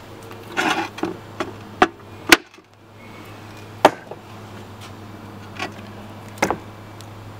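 About half a dozen sharp knocks and cracks as a partly sawn iron-epidote rock is broken apart along its saw cut, the loudest about two seconds in, over a faint low hum.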